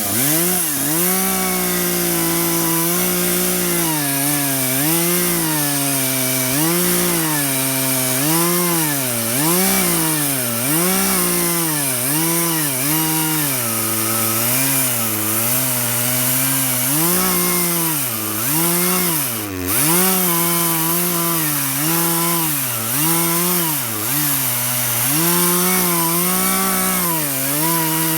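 Poulan chainsaw on a Beam Machine attachment, ripping lengthwise through a log to mill a beam. The engine speed rises and falls about once a second as it bogs under load in the cut and picks up again. About two-thirds of the way in it drops sharply for a moment, then recovers.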